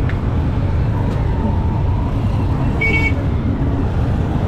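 Road traffic: vehicle engines running steadily, with a brief high beep about three seconds in.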